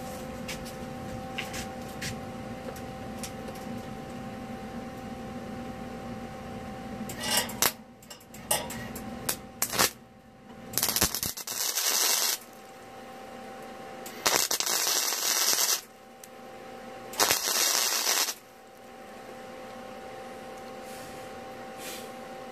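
Wire-feed welder tack-welding a steel bracket: a steady hum, then several brief arc strikes, then three welds of one to two seconds each.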